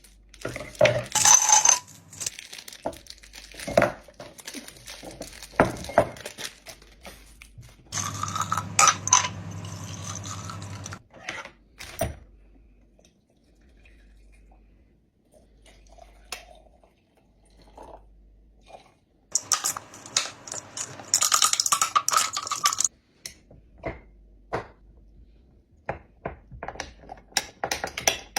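Drink-making sounds: a run of sharp clinks and knocks of glassware, ice and utensils. There are two longer spells of steady rushing noise, one about a third of the way in and one about two-thirds in.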